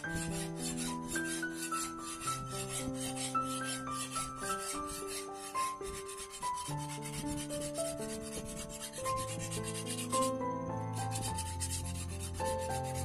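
A wooden stick rubbed back and forth along a leaf-spring steel sword blade, a quick scraping rasp as the blade is polished. A background melody of held notes plays under it.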